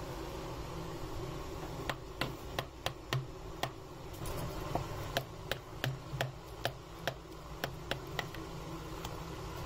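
Metal spoon clicking and tapping against a plastic bowl while mayonnaise is scooped onto chopped garlic: a string of sharp clicks, two or three a second, starting about two seconds in and stopping near the end, over a steady low hum.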